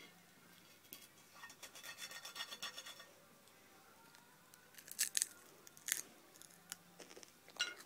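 Faint handling noise on a phone held close to the face: a run of quick scratchy rubbing about a second in, then a few sharp clicks around five and six seconds in and again near the end.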